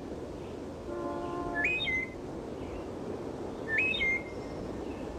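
Robin singing: a short, chirpy whistled phrase that jumps up and down in pitch, heard twice about two seconds apart, with a brief soft held chord just before the first.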